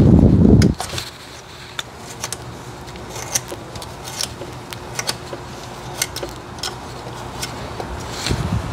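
Scattered light metallic clicks and taps as a hand works among the parts around the thermostat housing in the engine bay, with a dull thump at the start and another near the end, over a faint steady hum.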